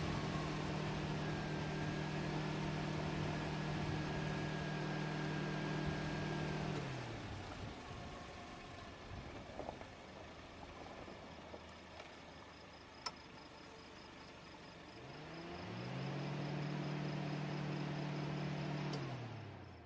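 A car engine running at a steady pitch while driving. About seven seconds in, the note sinks and fades. Around sixteen seconds it rises back, holds steady, then sinks again just before the end, with a single sharp click about thirteen seconds in.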